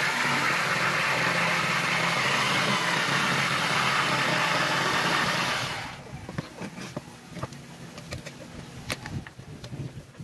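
Bosch GST 700 jigsaw with a T101AO curve-cutting blade running and cutting through plywood, a steady loud buzz that stops about six seconds in. Scattered light clicks and knocks follow as the saw is moved on the board.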